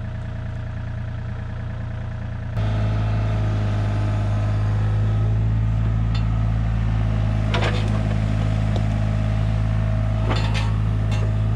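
An engine running steadily at one constant speed, louder and fuller from about two and a half seconds in, with a few short cracks or snaps over it.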